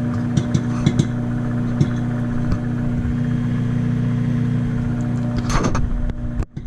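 Microwave oven running with a steady hum while popcorn pops inside a microwave popcorn popper. The pops are sparse and thin out after the first couple of seconds, as the batch nears done. A louder burst of noise comes about five and a half seconds in, then the sound cuts off.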